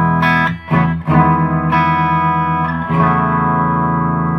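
Solid-body electric guitar with P90 pickups, a 1959 Gibson Les Paul Special, played on its bridge pickup through an amp on a clean setting: a few chords strummed in turn, the last one, about three seconds in, left ringing.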